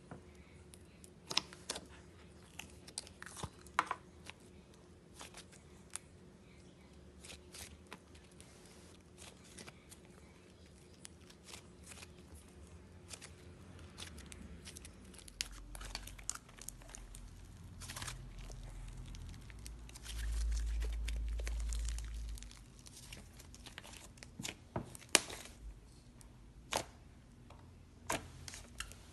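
Slime being poked, pressed and squeezed by hand, giving sharp pops and crackles at irregular intervals. About two-thirds of the way through, a low rumble lasts about two seconds.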